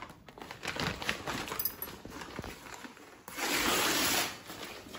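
Paper delivery mailer being handled, crinkling and rustling, with one louder rustle about a second long just after three seconds in.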